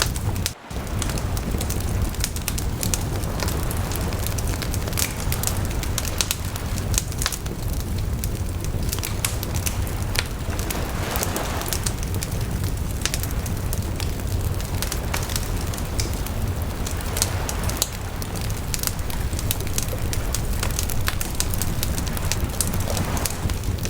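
Wood campfire crackling with many sharp pops over a steady low rumble, with slow swells of ocean waves breaking. The sound drops out briefly just under a second in.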